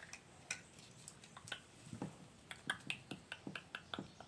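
Sticky taba squishy toy being squeezed and pulled, giving a run of faint sticky clicks and pops that come faster in the second half.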